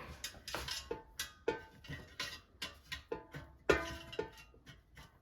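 Light clinks and taps of metal as broccolini is placed into the air fryer basket, a string of short knocks, some ringing briefly, about two or three a second.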